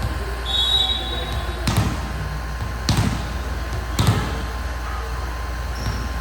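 A volleyball struck three times about a second apart, each a sharp slap or thud, over a steady low background rumble. A short high squeak sounds near the start.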